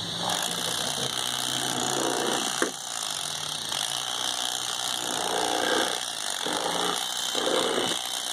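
Electric fillet knife running with a steady buzz, its blades cutting into a fish fillet in uneven spurts. A sharp click comes about two and a half seconds in.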